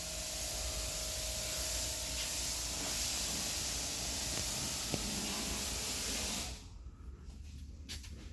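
A steady, even hiss that cuts off suddenly about six and a half seconds in.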